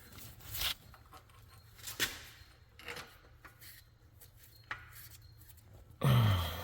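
Bolts and small metal parts being handled while fitting a four-wheel-drive actuator: a handful of light metallic clicks and some rubbing. Near the end a short vocal sound, the loudest thing here.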